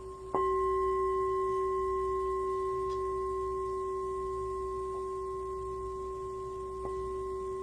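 Meditation bell struck once about a third of a second in, over the fading ring of an earlier strike. It gives a clear ring with higher overtones that dies away slowly, marking the close of the meditation sitting.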